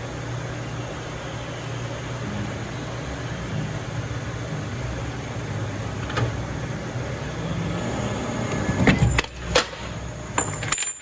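Metal lathe running steadily while cutting threads on a metal part, with a low hum. The hum stops about nine seconds in and is followed by a few sharp metallic clinks.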